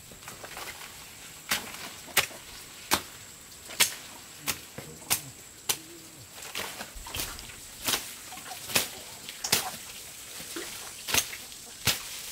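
Weeds and plant stalks being cut and snapped while clearing undergrowth with a knife: sharp, irregular snapping strikes, a little more than one a second.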